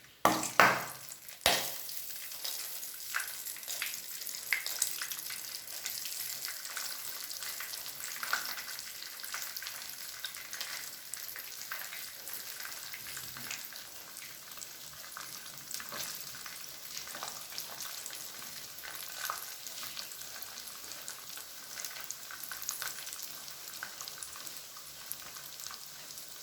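Oats-coated chicken pieces frying in hot coconut oil. The loudest spits and crackles come in the first two seconds as the pieces go in, then a steady sizzle with scattered small pops.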